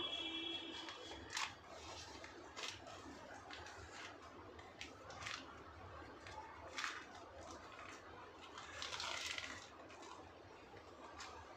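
Scattered short scrapes and rustles of potting work, soil and plants being handled, about one every one to three seconds, with a longer rustle about nine seconds in.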